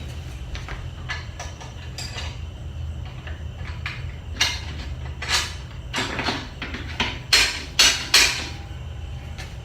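Metal parts clinking and knocking on a motorcycle rear axle assembly: a few light ticks, then a string of louder, sharp clanks in the second half, over a steady low hum.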